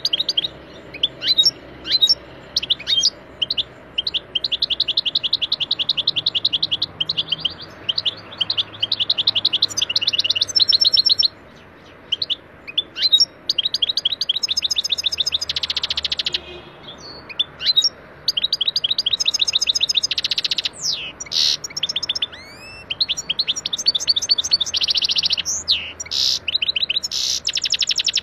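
European goldfinch singing in full, rapid-fire song: long runs of fast trills and twittering notes, broken by brief pauses between phrases.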